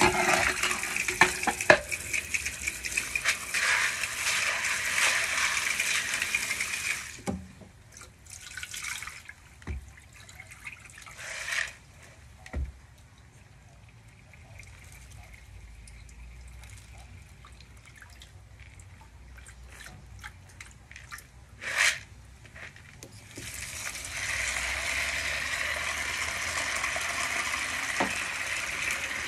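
Tap water pouring into a concrete washtub sink while beans are rinsed in a plastic bowl under it. The stream runs strongly at first, eases to a thin trickle with a few short splashes through the middle, and pours strongly again near the end.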